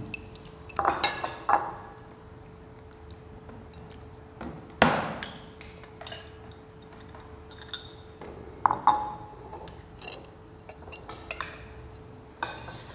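Metal spoons clinking and scraping against ceramic bowls and plates while eating: scattered sharp clinks with a short ring, the loudest about five seconds in, over a faint steady hum.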